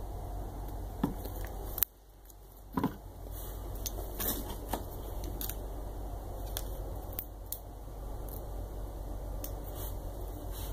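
Scattered small clicks and crinkles of hands handling small parts, adhesive tape and plastic packaging on a workbench, over a steady low hum. The sound drops out briefly about two seconds in.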